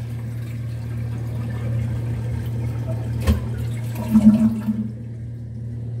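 Water running in a toilet, a steady hiss that stops about five seconds in, over a steady low hum. A single knock comes about three seconds in.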